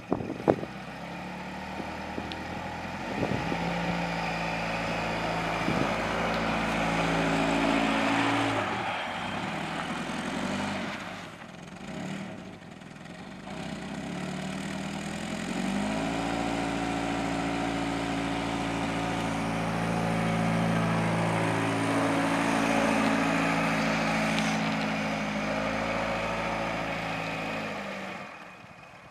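Volvo 740's engine running as the car drives off and comes back, newly revived after standing six years. The engine note rises and falls with the throttle, drops away for a few seconds midway, then holds a steady higher note before dying away near the end.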